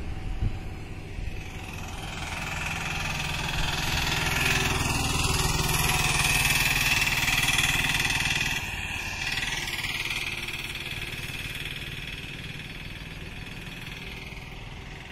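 Highway traffic: a motor vehicle's engine and tyre noise swelling as it passes close by, loudest about six to eight seconds in, then dropping away and fading over a steady low road rumble.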